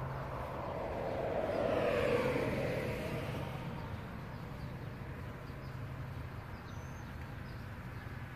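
A vehicle driving past, its tyre and engine noise swelling to its loudest about two seconds in and then dying away, over a steady low hum.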